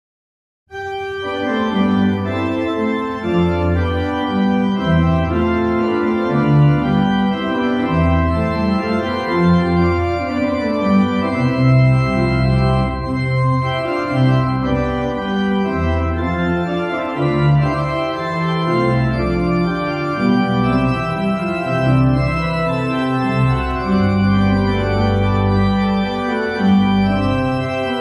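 Church organ playing sustained chords with a moving bass line, starting suddenly just under a second in.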